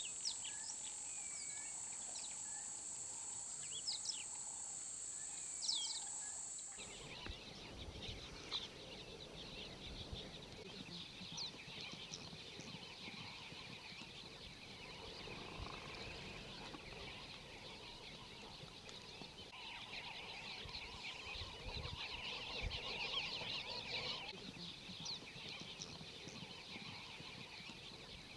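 Outdoor ambience of many small birds chirping, over a low wind rumble. For the first several seconds a steady high whine sits above the chirps. About seven seconds in, the background changes abruptly to busier chirping with more rumble.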